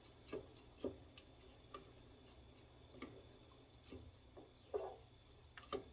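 Wooden spoon stirring rice and water in a pot, making faint, irregular knocks against the pot.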